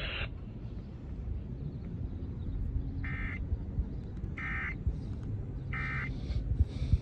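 Emergency Alert System end-of-message signal: three short bursts of warbling SAME data tones, about 1.3 seconds apart, over low steady radio noise, marking the close of the flash flood warning broadcast.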